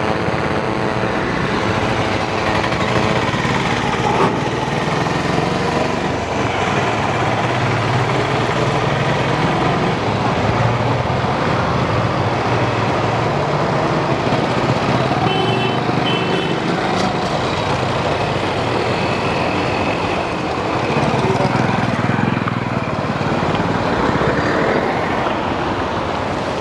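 Steady road traffic noise: vehicle engines running and passing without a break, with a few short high beeps about halfway through.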